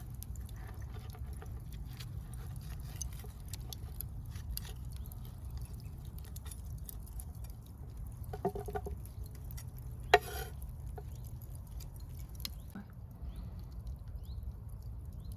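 Steady low rush of flowing river water with scattered small clicks and light handling noises over it. There is a brief pitched clink a little after eight seconds and one sharp click just after ten seconds.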